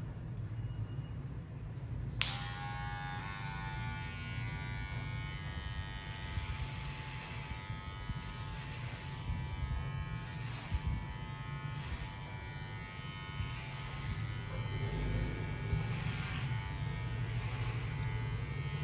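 Electric hair clipper buzzing steadily while cutting hair, with a sharp click about two seconds in.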